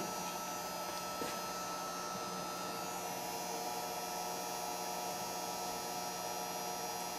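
Mains transformer humming steadily while powered from a variac at a low voltage of about 190 volts, a little noisy. There is a faint click about a second in.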